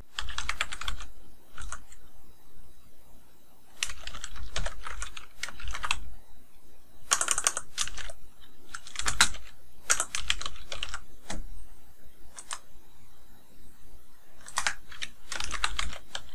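Computer keyboard typing in several short bursts of keystrokes with pauses between them.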